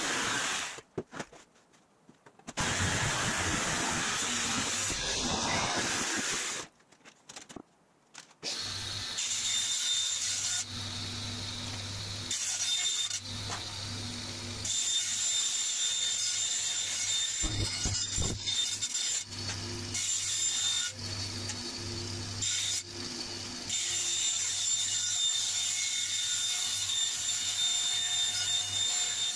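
A jigsaw cutting thin aluminium sheet, stopping twice for a second or two. From about nine seconds in, a bandsaw runs with a steady hum and a high whine as aluminium sheet is fed through the blade.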